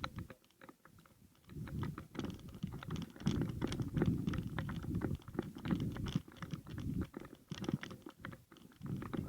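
Wind buffeting the microphone in uneven gusts that start about a second and a half in, with many small clicks and rustles over it.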